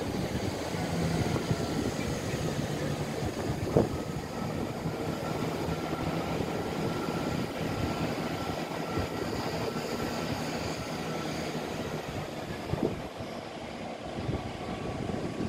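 Class 153 single-car diesel railcar running in slowly to stop at the platform, its underfloor diesel engine giving a steady rumble with a faint whine, and a sharp click about four seconds in.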